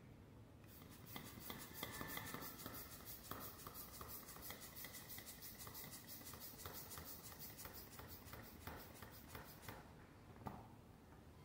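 Rapid, even scratching on a volleyball as its valve is worked on by hand. It starts about a second in and stops near the end.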